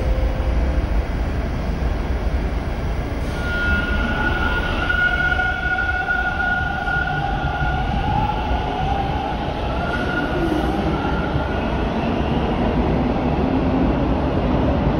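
Bombardier T1 subway train moving along the platform: a steady low rumble, with a high whine that comes in a few seconds in and fades out after about eleven seconds.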